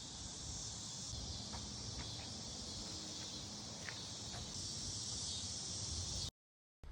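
Steady, high-pitched insect chorus of crickets or cicadas, with a few faint ticks. It cuts off abruptly near the end.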